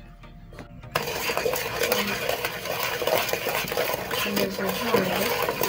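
A wooden spoon stirring blended pineapple and sugar in a metal pot, scraping and knocking against the pot's sides. The stirring starts about a second in and continues steadily.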